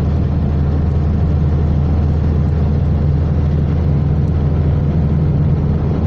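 Steady in-cabin road noise of a car at motorway speed: a loud, constant low engine and tyre rumble with an even hiss of road and wind noise above it.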